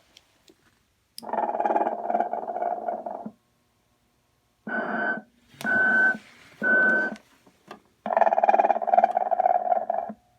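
Telco snoring Santa figure playing its recorded snore through its small built-in speaker. A long snore comes first, then three short whistling puffs, then another long snore.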